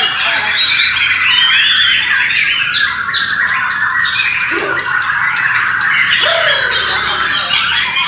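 Several caged murai batu borneo (Bornean white-rumped shamas) singing at once in competition, a dense, unbroken tangle of overlapping whistles, trills and harsh chattering phrases. A couple of lower swooping calls cut through it in the middle.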